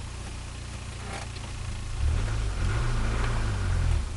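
Turbocharged Nissan Micra engine idling in neutral, heard from inside the cabin. About two seconds in the idle speed rises toward 1250 rpm and the engine note gets louder, dropping back just before the end.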